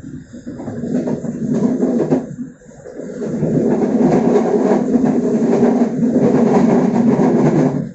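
Passenger train running along the track, heard from the open rear end of the last carriage: a steady rumble of wheels on rail that dips briefly and then grows louder about three seconds in.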